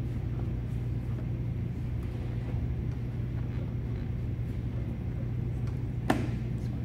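A steady low hum, with one sharp click about six seconds in from hand tools working at the screws of a car's air box cover.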